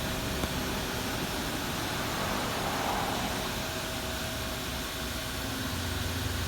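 Steady hum and hiss of running shop machinery with a faint steady tone; a deeper hum grows louder near the end.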